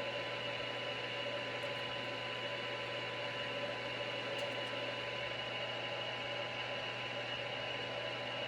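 Grizzly G0776 metal lathe running at a steady speed, with an even hum and several fixed whining tones, while it turns a steel bar held between centers.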